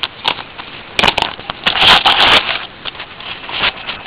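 Footsteps crunching through dry leaf litter and bark mulch: a few light crackles at first, then a loud run of crunching from about a second in that lasts about a second and a half.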